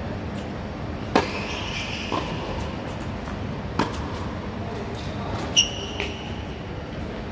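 Tennis rally on an indoor hard court: a serve is struck about a second in, the loudest hit, followed by ball bounces and racket strikes every second or two. A brief high squeak comes with a hit near the end.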